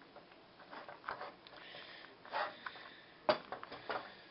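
Spatula stirring hot macaroni in a stainless steel pot to melt butter through it: soft, scattered scraping and stirring sounds, with a sharp knock of the spatula against the pot a little past three seconds in.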